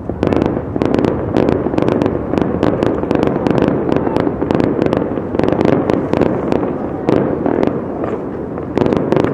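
Fireworks going off in a rapid, irregular run of sharp cracks and pops over a steady rumbling haze. The run eases near the end, then a last cluster of cracks follows.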